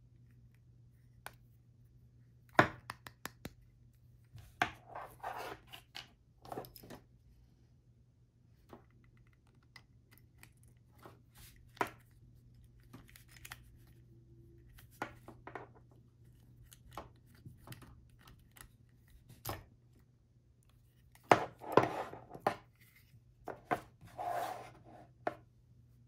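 Hands handling a plastic DisplayPort-to-DVI adapter and its cable: scattered clicks, taps and short rustles, with a sharp knock about two and a half seconds in and a cluster of louder clicks and rustles about twenty-one to twenty-five seconds in. A faint steady low hum runs underneath.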